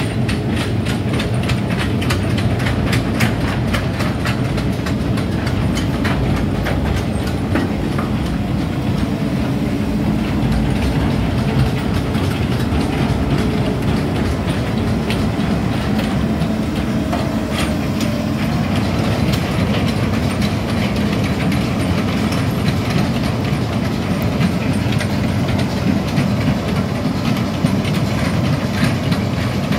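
Hitachi Zaxis 210F amphibious excavator travelling on its pontoon tracks: the diesel engine runs steadily under a continuous rattle and clank of the track cleats passing over the pontoons.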